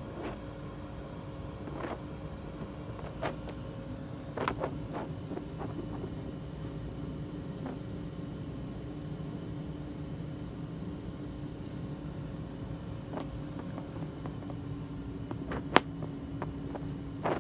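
Steady low machine hum with two faint steady tones, broken by a few small taps and clicks: a short cluster about four seconds in and one sharp click near the end.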